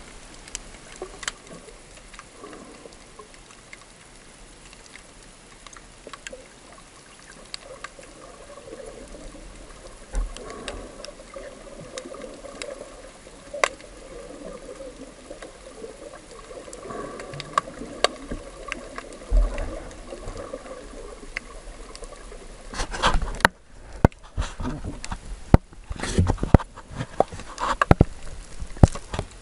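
Water sound heard underwater and muffled: a steady hiss scattered with sharp little clicks. In the last several seconds it turns into loud splashing and bubbling, with sudden gaps, as the snorkeler moves at the surface.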